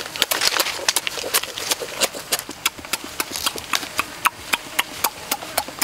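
Close-miked chewing and lip-smacking of a person eating cooked lobster: a fast, irregular run of sharp clicks, several a second.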